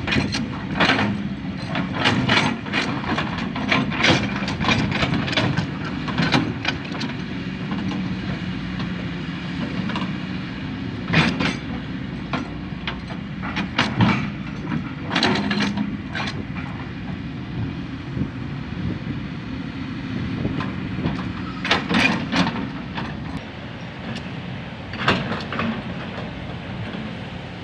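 Heavy diesel excavator engine running steadily, with irregular sharp metallic clanks and knocks over it, a few of them louder, about 11, 14, 15 and 22 seconds in.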